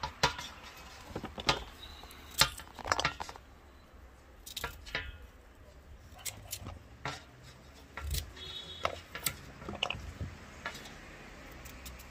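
Knife cutting through coconut meat in the hand, with irregular sharp clicks and knocks as the cut pieces drop into a stainless steel bowl.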